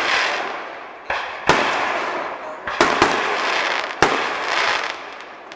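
Aerial fireworks shells bursting: five sharp bangs, some in quick pairs, each followed by a crackling hiss that fades over about a second as the stars burn out.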